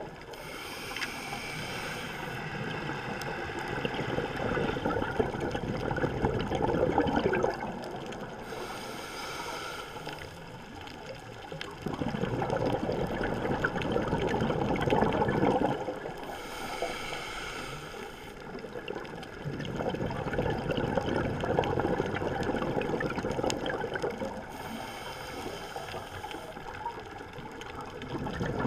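Scuba diver breathing through a regulator, heard underwater. Four breaths about eight seconds apart, each a short hissing inhale followed by a longer rush of bubbling exhaust.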